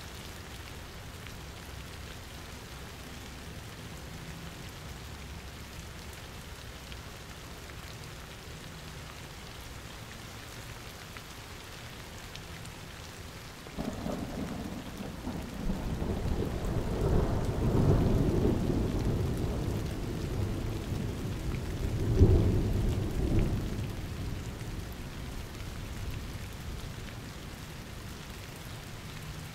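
Steady rain falling, then about halfway through a roll of thunder starts suddenly and rumbles for around ten seconds, peaking twice before fading back under the rain.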